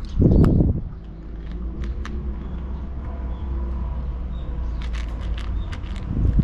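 Cat chewing wet food from a plastic bowl: scattered small wet clicks. Two brief low rumbles, the loudest sounds, come just after the start and again at the end, over a steady low hum.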